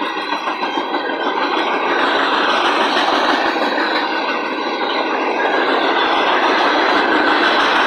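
Freight train's open-top hopper cars rolling past on the rails: steady steel-wheel-on-rail noise that grows a little louder about two seconds in.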